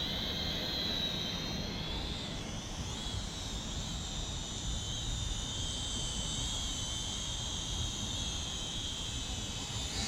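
Small RC quadcopter drone in flight, its motors and propellers giving a steady high whine that wavers and shifts in pitch as it is steered, about two seconds in and again near the end.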